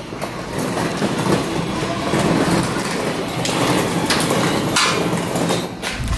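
Continuous metallic clattering and knocking from work on a car's rear suspension arm, as stiff polyurethane bushings are forced into it.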